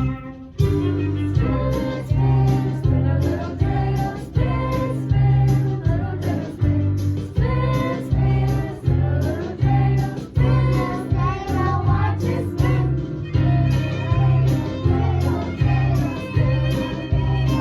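Children singing a song together over a backing track with a steady beat and a pulsing bass.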